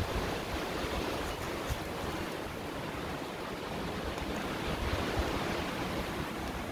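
Steady rushing of wind through the woodland and over the microphone, with low buffeting and a few faint, sharp ticks.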